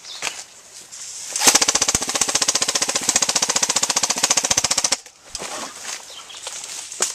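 Airsoft rifle firing one long full-auto burst of rapid, evenly spaced shots, lasting about three and a half seconds and starting about a second and a half in.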